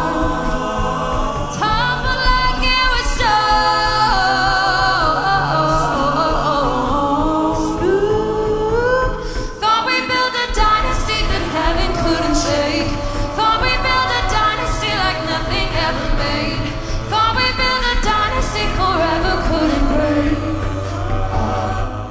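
An a cappella group sings a pop song: a female lead voice over held backing harmonies, a sung bass line and beatboxed percussion. The bass and beat drop out briefly about ten seconds in, then return.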